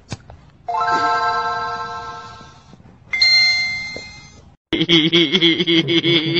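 Two doorbell-like chimes, one about a second in and a higher-pitched one past three seconds, each ringing clear tones and fading away. Near the end a different steady pitched sound with a fast pulse starts.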